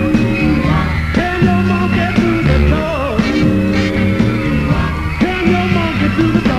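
Rock and roll band playing with a male singer, held sung notes over drums.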